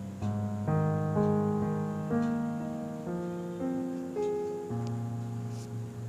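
Background music: soft piano chords, the notes changing every half second or so.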